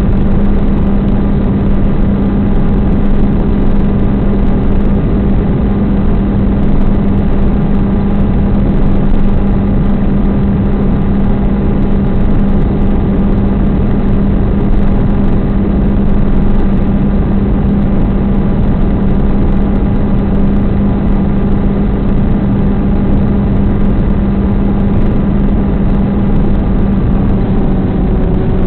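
Electric motor and propeller of a Stratosurfer FPV plane running steadily at cruise power, heard through the onboard camera's microphone: a constant low hum under loud rushing air noise.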